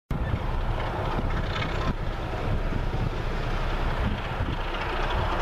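Wind buffeting the microphone, with the distant running of a pair of approaching diesel locomotives, a Class 33 and a Class 24, underneath.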